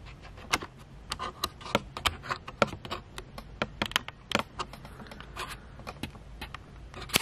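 Irregular light clicks and taps, a few a second, from things being handled close to the microphone while the camera is being set up.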